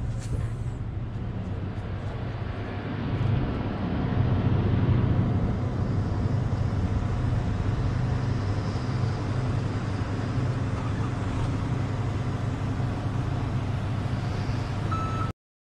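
Large diesel engine running steadily: a deep, even hum that swells about four seconds in and cuts off abruptly near the end.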